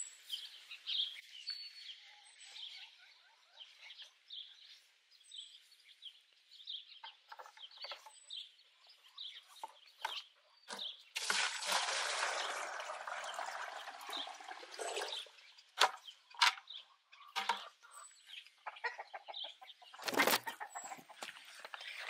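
Water poured from a bucket into a 5-gallon plastic pail for about four seconds, starting about halfway through, followed by a few knocks as the buckets are handled. Birds chirp throughout.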